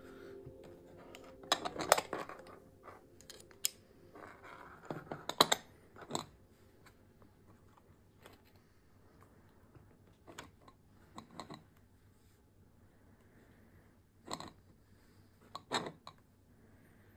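Scattered clicks and clinks of small hard objects being handled, with a busy cluster early on and a few isolated knocks later.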